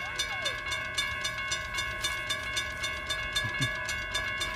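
Railroad crossing warning bell ringing steadily in rapid, even strikes while the crossing is activated for an approaching train and the gates begin to lower.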